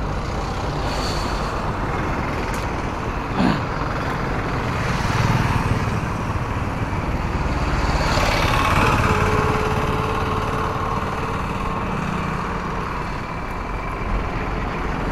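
Highway traffic of buses, motorbikes and auto-rickshaws heard from a moving bicycle as a steady rushing noise, with a short knock about three and a half seconds in.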